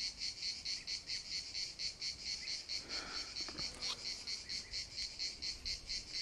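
Insects chirping in a steady high-pitched chorus that pulses about five times a second.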